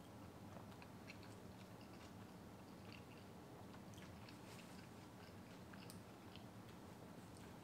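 Faint chewing of a barbacoa taco in a corn tortilla: soft, irregular wet mouth clicks and bites, close to the microphone.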